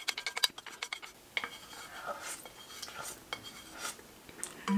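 Wooden spoon scraping and clinking against a plate to get up the last of the food: a fast run of scrapes at the start, then occasional scrapes and taps.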